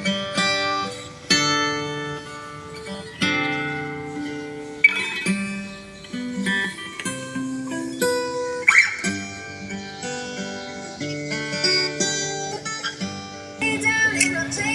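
Background music: an acoustic guitar plucking and strumming.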